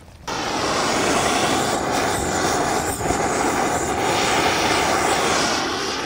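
Handheld gas torch flame hissing steadily as it sears marshmallows in a metal cup; it lights a moment in and shuts off near the end.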